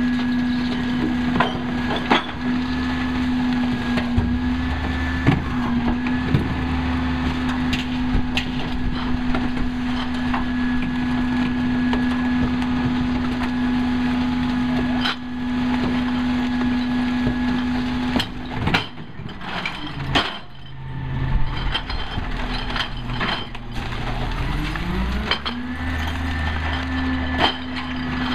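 Peterbilt 320 recycling truck with a G&H split-body rear loader running with a steady hum, over scattered knocks and clatter of recyclables being dumped into the hopper. About two-thirds through, the hum drops away, then rises back in pitch and holds steady near the end.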